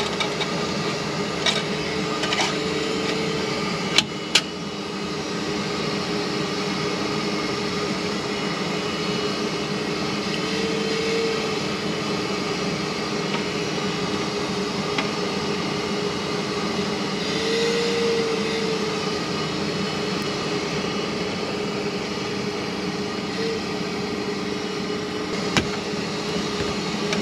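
A steady machine hum with several held tones, broken by a few sharp clicks about four seconds in and again near the end.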